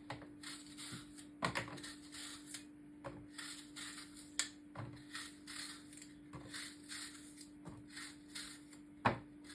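Knife peeling the skin off a green apple: a quick run of faint, soft scraping strokes with a few sharper clicks, over a steady low hum.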